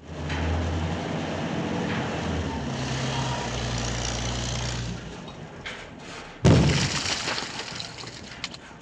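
Wrecking ball demolition sound effect: a heavy machine engine runs steadily for about five seconds, then one loud, deep impact about six and a half seconds in, followed by debris crumbling and fading out.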